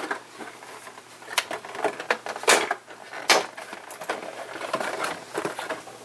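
Hands working at a toy's retail packaging, undoing tape: scattered rustles and clicks, with three sharper, louder ones at about one and a half, two and a half, and three and a half seconds in.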